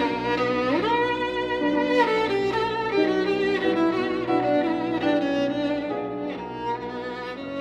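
Violin played with the bow, with piano accompaniment; about a second in it slides up roughly an octave into a long held high note, then carries on with a melody.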